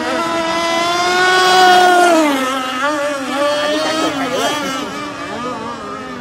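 Several two-stroke petrol engines of racing RC model boats running at high revs together, their pitches overlapping and rising and falling as the boats pass and turn. The loudest boat peaks about two seconds in, then drops sharply in pitch.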